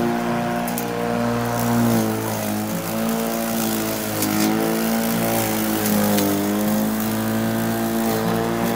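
Makita 36V (18V×2) cordless lawn mower's electric motor and blade running, a steady whine with several overtones. Its pitch sags briefly a few times and comes back up as the blade cuts into grass and weeds. Scattered light clicks run over it.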